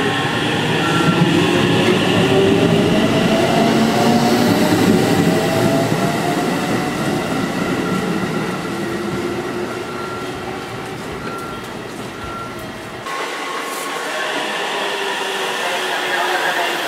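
JR 313-series electric train pulling through a station, its inverter-driven traction motors whining in several tones that climb slowly in pitch as it accelerates. The sound changes abruptly about 13 seconds in to a quieter, thinner train background.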